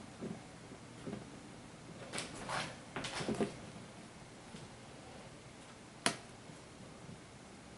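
Soft taps and rustling of a hand handling an acrylic display case, then one sharp tap about six seconds in as a finger works its touch switch and the LED lights come on.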